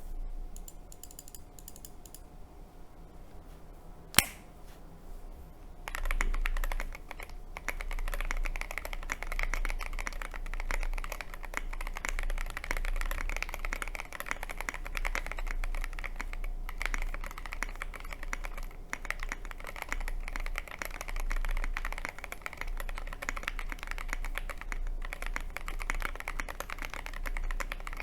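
Glorious GMMK Pro mechanical keyboard with stock pre-lubed Everglide Aqua King V3 linear switches, a polycarbonate plate and SA-profile doubleshot keycaps being typed on. One sharp click comes about four seconds in, then fast, continuous typing from about six seconds on.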